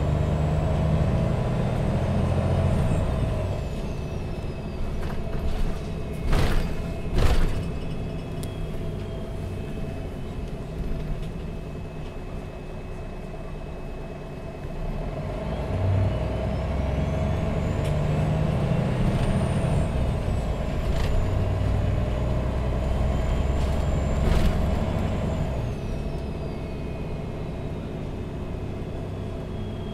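MAN Lion's City G articulated bus's six-cylinder diesel and drivetrain heard from inside the moving bus, with a thin high whine that rises and falls with the engine. The engine pulls, eases off after about three seconds, then pulls away again about halfway through. Two sharp knocks come about six and seven seconds in.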